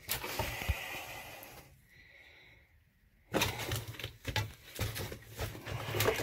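Scuffing, scraping and clothing rustle with handling knocks on the camera as a man clambers stooped through a cramped underground shelter. The noise eases off for about a second around two seconds in, then comes back as a dense run of knocks and scrapes.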